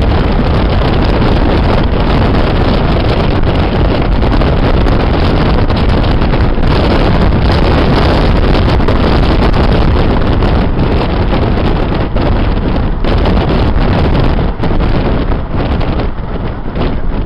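Wind rushing and buffeting the microphone through an open side window, over the engine and road noise of a classic car driving at steady speed. The rush eases and turns uneven in the last few seconds.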